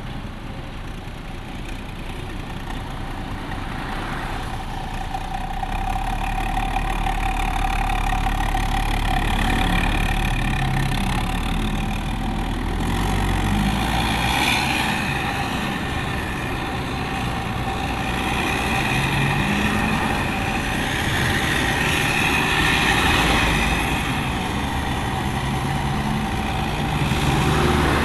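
Hino RK bus diesel engine running through a loud aftermarket exhaust, a deep snoring growl heard from a vehicle following it. The engine sound gets louder about six seconds in, then swells and eases a few times.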